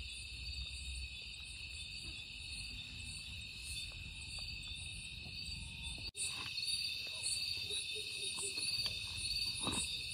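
Crickets chirring in a steady night-time chorus, with faint scattered ticks and rustles beneath it. The chorus cuts out for an instant about six seconds in, then carries on.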